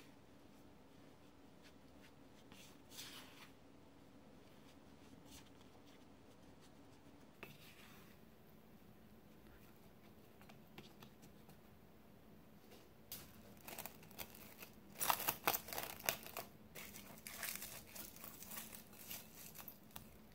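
Soft scraping and pressing of sticky bread dough in a glass bowl. Then, about two-thirds of the way in, plastic cling wrap crinkles and tears with a run of sharp crackles as it is pulled off the roll and stretched over the bowl.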